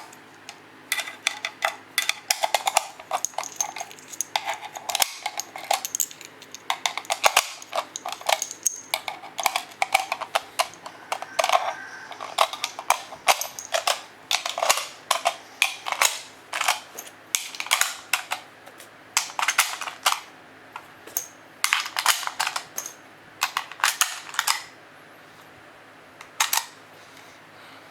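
7.62x54R rifle cartridges being pressed one by one into a ten-round Dragunov magazine: a long run of sharp metallic clicks and clacks in irregular clusters, stopping about three-quarters of the way through.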